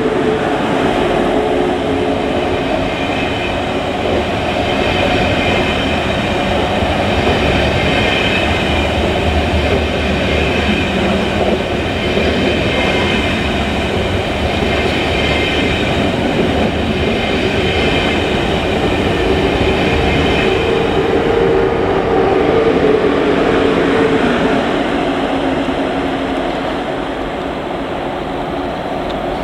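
A train passing slowly through a station: a steady, loud rumble of wheels on rail with a whine on top, easing off a little near the end.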